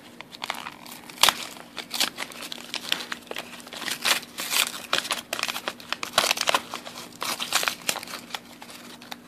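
Brown paper wrapping on packets of surplus 5.45x39 ammunition being handled and torn open by hand: irregular crinkling and rustling with a few sharper snaps, the loudest about a second in.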